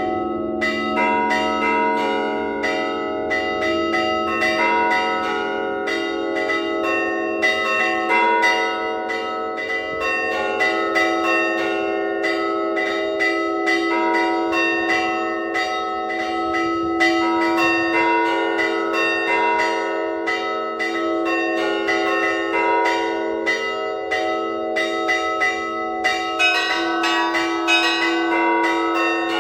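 Bells of the Annunciation Cathedral in Kharkiv rung in an improvised Orthodox peal: quick strikes on the smaller bells over the steady ringing of the lower bells, busier in the high bells near the end.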